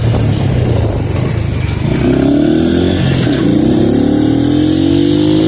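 Honda Pop 110i motorcycle's small single-cylinder engine running under way: steady for the first couple of seconds, then rising in pitch as it accelerates, dipping briefly about three seconds in before climbing again.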